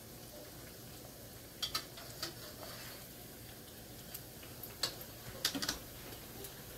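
Bread slices frying in a wok with a faint steady sizzle, and a spatula clicking against the pan several times as the pieces are turned.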